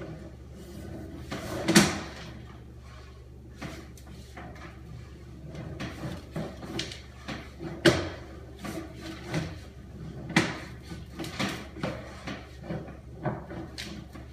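Sewer inspection camera and its push cable being fed along a sewer pipe: irregular knocks and scrapes over a steady low hum. The loudest clunks come about two seconds in and about eight seconds in, and the knocks come more often in the second half.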